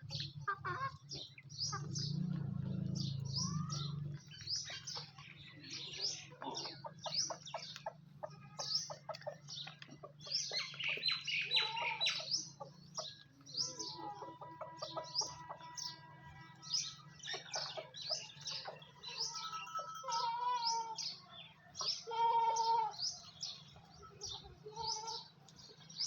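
Many birds chirping in quick, repeated high notes, with a few longer, lower calls mixed in from the middle on, over a steady low hum.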